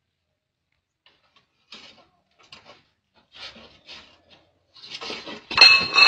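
Faint, scattered scratching and scuffing as cats' claws scrabble on a wall and a metal electrical box. About five and a half seconds in, a sudden loud, noisy sound with a steady high-pitched tone through it cuts in.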